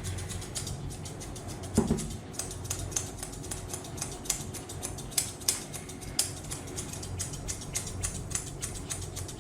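Grooming scissors snipping through a Pomeranian's fur in many quick, irregular snips over a steady low hum, with one louder thump about two seconds in.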